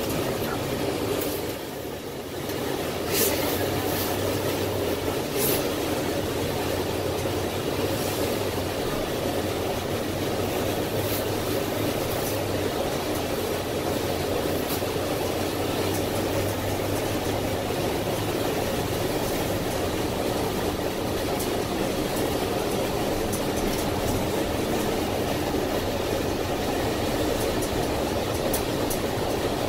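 Cabin sound of a 2007 NABI 60-BRT articulated bus under way: the steady drone of its Cummins Westport ISL G natural-gas engine under road and wind noise. There are a few sharp rattles in the first several seconds.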